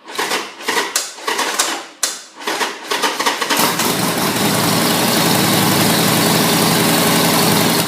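Harley-Davidson Sportster 1200C's air-cooled V-twin cranking on the starter with uneven sputtering firings, then catching about three and a half seconds in and running steadily. It starts once the faulty neutral sensor switch is bypassed by grounding its connector.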